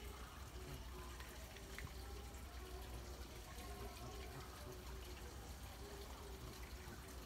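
Faint, steady sound of running water trickling into a pond.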